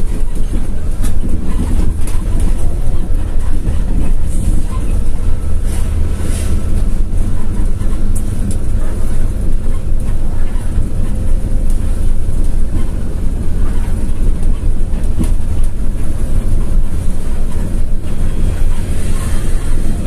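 Steady low rumble of a bus driving along, heard from inside the cab: engine and road noise.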